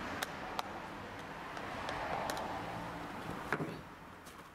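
Handling noise from a camera being moved closer and set down: a few light clicks and knocks over a low rustle, growing quieter near the end.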